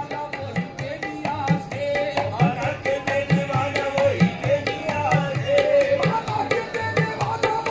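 Live qawwali music: a dholak hand drum keeps a steady beat with sharp hand claps on the rhythm, under a gliding, ornamented melody.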